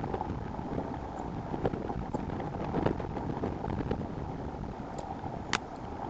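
Wind buffeting an outdoor microphone, a steady low rumble, with a few short clicks scattered through it.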